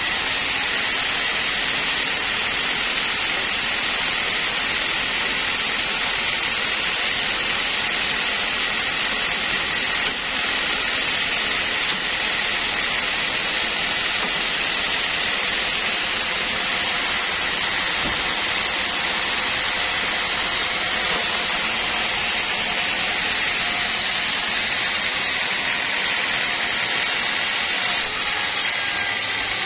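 Band sawmill running steadily, a continuous whirring hiss with no breaks; near the end the blade is cutting into a teak log.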